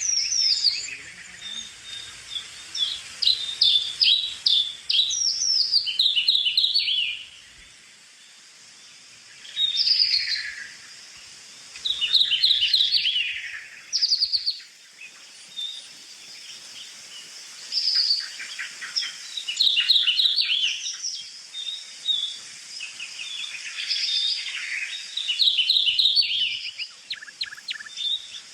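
Small songbirds chirping and singing in bursts of rapid high notes, some phrases sweeping down in pitch, with short pauses between the bursts.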